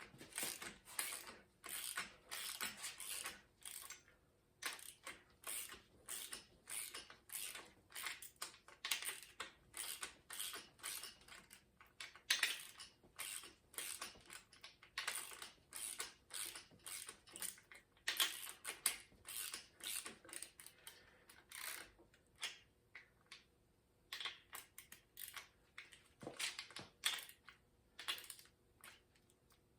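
Irregular runs of small metallic clicks and taps from hand tools working on an engine's valve train while the valves are being set.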